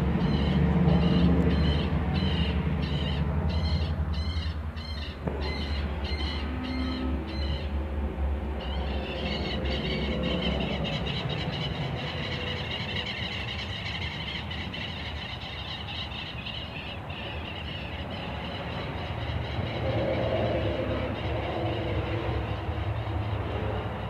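Steady low mechanical drone, with high chirps repeating about twice a second over the first eight seconds, then a wavering high squeal for several seconds.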